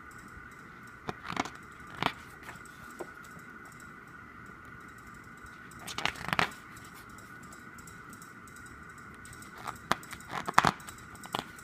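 Pages of an album photo book being turned and handled: short paper crackles and flicks about a second in, around six seconds and in a cluster near the end, over a steady faint high-pitched hum.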